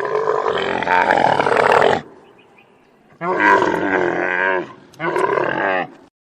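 Camel calling: three harsh calls, a long one of about two seconds, then after a pause a shorter call with a wavering pitch and a third brief one.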